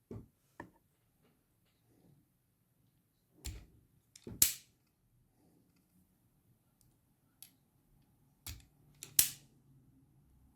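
Handling noise: a handful of separate sharp clicks and knocks, small ones at first, then two louder pairs about four and nine seconds in.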